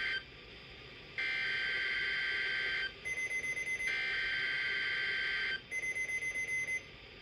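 NOAA Weather Radio SAME header data bursts: harsh, warbling digital tones sent as the Required Weekly Test code. One burst is just ending at the start, and two more follow, about a second and four seconds in, each lasting under two seconds. Shorter, choppy beeping fills the pauses between the later bursts.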